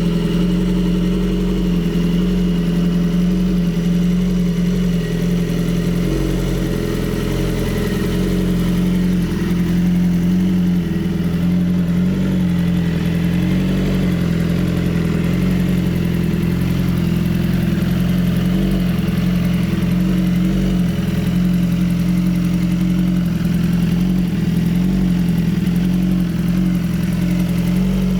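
BMW S 1000 RR HP4's inline-four engine idling steadily while it warms up after a cold start.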